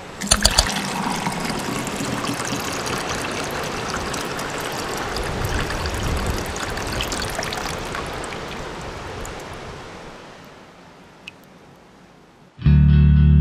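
Rushing water, a steady even hiss that fades away over the last few seconds. Near the end guitar music starts suddenly.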